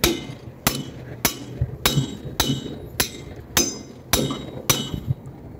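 Metal tool rapping on the shell of a Gree inverter air-conditioner compressor, about ten even knocks roughly every half second, each with a short metallic ring. The compressor is hard starting, stuck and won't run on its start signal, and it is struck to free it.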